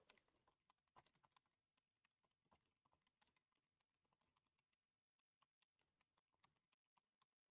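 Very faint clicks of computer keyboard keys being pressed one after another at an uneven pace, thinning out near the end.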